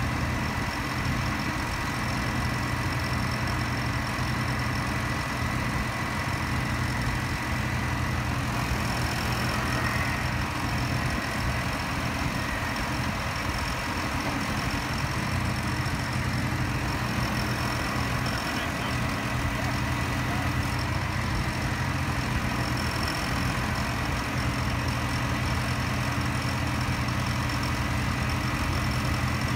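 Engine idling steadily, with a faint steady high whine above it.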